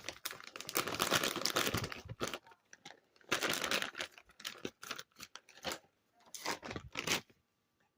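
Packaging wrapping crinkled and torn in irregular rustling bursts, which stop a little after seven seconds in.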